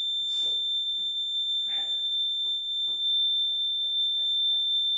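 Interval timer's beeper sounding one long, steady high-pitched beep, marking the end of the final work interval.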